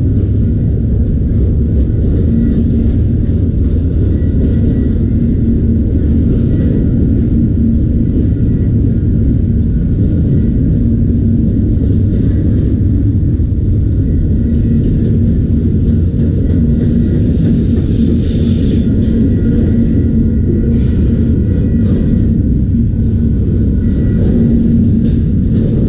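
Freight train of autorack cars rolling past, a loud, steady low rumble of wheels on rail.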